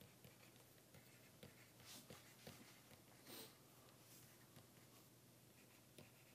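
Near silence: faint scattered scratches and taps of a pen writing letters, over quiet room tone.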